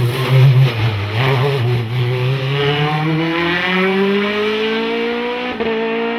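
Sports-prototype race car's engine pulling out of a bend. It stays low for the first couple of seconds, then its pitch climbs steadily as it accelerates hard, with a quick gearshift near the end. It grows slightly fainter as the car draws away.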